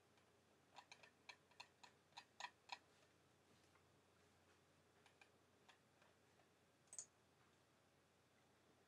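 Faint clicks of a computer mouse and keyboard over near silence: a quick run of about eight clicks in the first three seconds, a few fainter ones around five seconds in, and one sharper click about seven seconds in.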